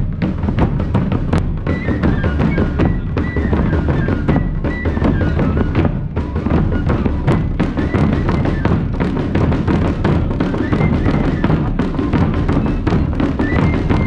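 A group of children playing traditional festival drums together in a fast, steady rhythm: deep bass-drum beats under rapid sharp strokes, with a high melodic line running over the top.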